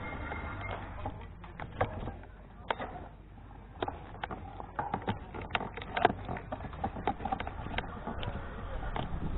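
Irregular clicks and knocks, a rattle from a moving e-bike and its camera mount, over a low rumble of wind and tyres; the knocks come thicker and louder in the second half.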